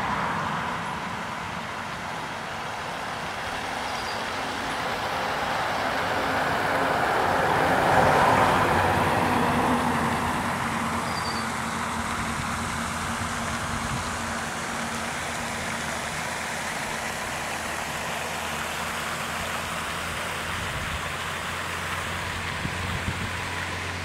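A road vehicle passing: its noise grows to a peak about eight seconds in and then fades, dropping in pitch as it goes by, leaving steady traffic noise.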